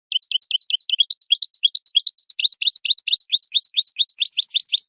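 European goldfinch singing: a rapid, even run of short twittering notes, about eight a second. Near the end it climbs into higher notes and closes on a falling note.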